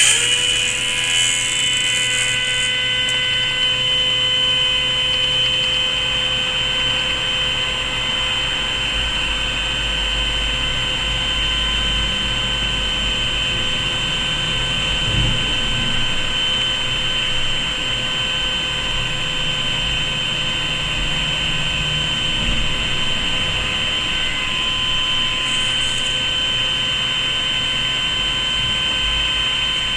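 Small 3D-printed centrifugal blower running at steady speed, its motor and impeller giving a constant pitched whine. It comes up to speed at the very start.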